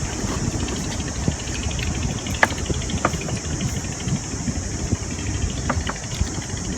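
Wind rumbling on the microphone outdoors, over a steady high-pitched hiss, with a few brief faint chirps.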